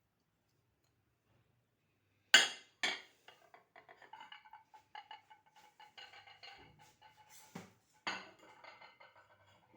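Garlic bulbs being put into a metal couscoussier steamer. Two sharp knocks come about two seconds in, then light clinking and rattling with a faint metallic ring, and another strong knock near the end.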